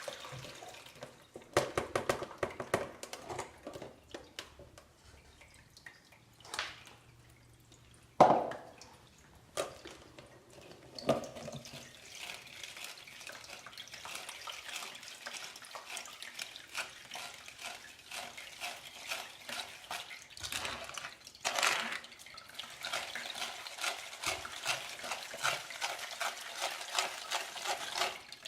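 Lemon juice being poured through a kitchen strainer, trickling and dripping into the container below, with a few sharp knocks of kitchenware in the first half.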